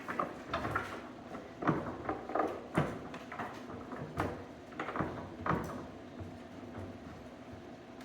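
Murphy desk-bed frame being lifted and locked into the desk position: a series of sharp knocks and clunks over the first six seconds, then quieter handling.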